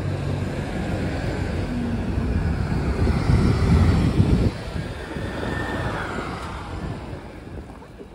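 A motor vehicle's engine passing in street traffic: it swells to its loudest about three to four seconds in, drops away suddenly, then fades out.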